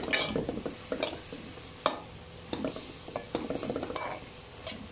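Metal spatula stirring and scraping chopped vegetables around a frying pan, with a light sizzle and a few sharp clicks of metal against the pan, the loudest about two seconds in.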